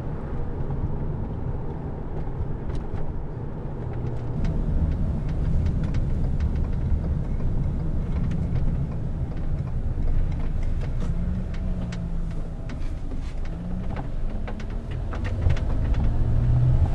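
A motor vehicle's low, steady rumble, with scattered light clicks and taps.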